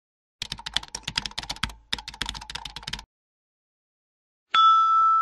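Rapid keyboard typing clicks in two quick runs of about a second and a half each. After a pause, a bright ringing tone starts near the end and holds.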